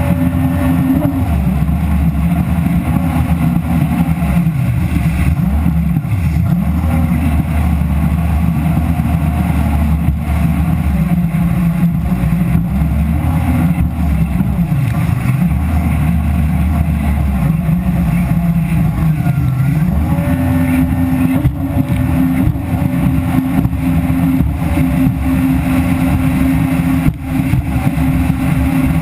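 Jet ski engine running under way, loud and continuous, its note shifting up and down with the throttle, with a brief dip in loudness near the end.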